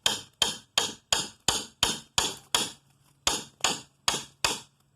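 Hammer blows in a fast, even rhythm, about three a second, a dozen strikes with a short break a little past the middle: hammering to knock apart a wooden pallet and free its boards.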